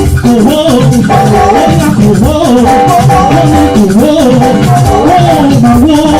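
Loud, continuous music with a shaker rattling a steady rhythm under singing.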